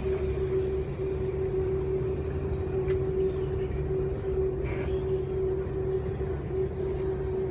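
Steady engine drone of a vehicle being ridden in, with a constant hum over a low rumble.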